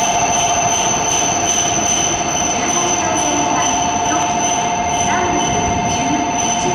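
Shinkansen bullet train moving along the station platform: a loud, steady rush of running noise with a high two-note whine held throughout.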